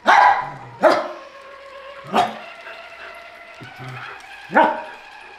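A corgi barking: four sharp barks, spaced unevenly over a few seconds.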